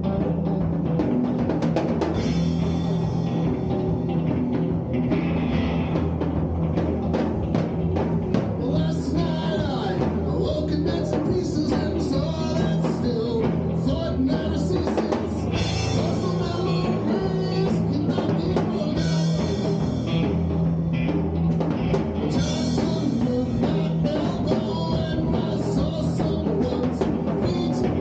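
Rock band playing live: a drum kit pounding out a steady beat over electric guitars, with a low note held underneath.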